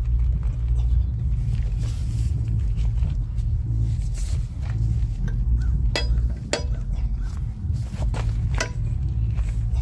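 Metal hand tools clinking on a semi truck's wheel: a socket and breaker bar at work on the lug nuts, with several sharp metallic clinks in the second half. Under them runs a steady low rumble.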